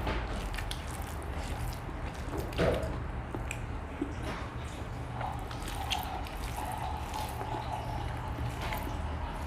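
Close-up eating sounds: wet chewing and lip smacks, with fingers squishing rice on the plate. Scattered small clicks and one louder smack about two and a half seconds in.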